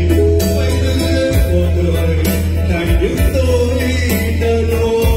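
Ballad with a steady bass and long held melody notes. A male voice sings into a microphone, holding notes rather than running words; one note bends in pitch about three seconds in, then holds to the end.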